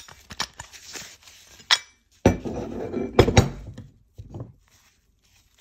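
A Master Lock 736 van lock being worked open by hand: scattered metallic clicks and clinks, then a dense metal rattle of about two seconds with several sharp clicks in the middle, and a last few clicks.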